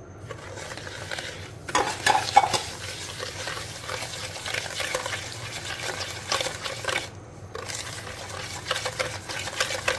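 Wire whisk stirring brown sugar into beaten eggs and oil in a mixing bowl, its wires clicking and scraping against the bowl in quick strokes. It starts after a quiet second or two and breaks off briefly about seven seconds in.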